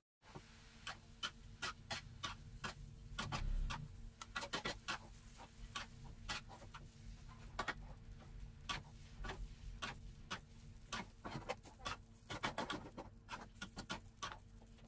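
Wooden chopsticks and a metal spatula clicking and scraping against a metal wok as rice vermicelli is tossed, in irregular taps, over a faint steady hum.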